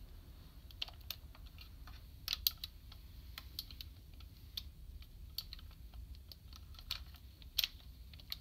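Hard plastic parts of a DX Kerberos Voyager robot toy clicking and knocking lightly as it is handled and turned over, in scattered, irregular clicks.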